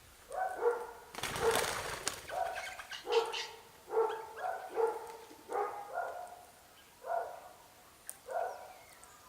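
Birds at a feeder giving a run of short, harsh, repeated calls, about one every half second to a second, with a brief noisy rustle about a second in.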